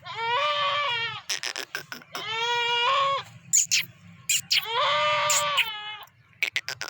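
Goat bleating three times: long, drawn-out calls of about a second each, steady in pitch. Sharp clicks come between the calls.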